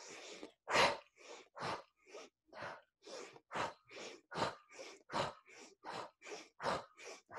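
Rapid rhythmic breathing close to the microphone: short inhales through the nose alternating with louder puffed exhales through the mouth, a little more than one full breath a second, the quickened pace of an energizing breath-with-movement exercise.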